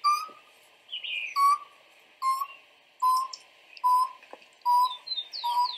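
Moustached turca (Pteroptochos megapodius) giving its territorial song: a series of seven short, hollow hoots, about one every 0.8 s, falling slightly in pitch after the first.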